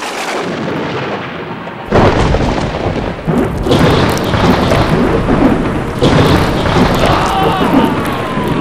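Loud thunder-like rumble on a film soundtrack. It begins as a hissing noise, surges suddenly and heavily about two seconds in, and surges again at about three and six seconds. In the last couple of seconds a wavering tone comes in above it.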